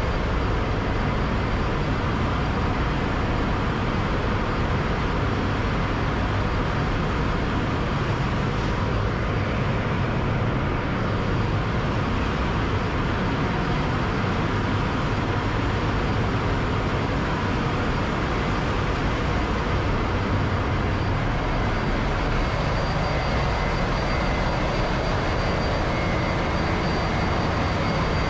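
Steady machinery din of a ship's engine room, the running plant blending into one unbroken drone, with a few faint high steady whines over it.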